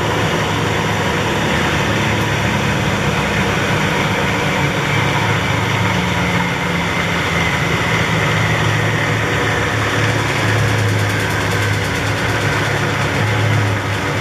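Philips SlimStar HN3156 washing machine running with its rear panel off, the motor turning the drum pulley by belt: a steady mechanical noise with a low hum. A faint higher whine swells in the middle.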